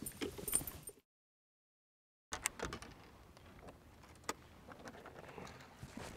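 Light knocks and clicks from anglers moving about and handling gear on a fishing boat's deck, over faint outdoor ambience. The sound drops out entirely about a second in and comes back about a second later.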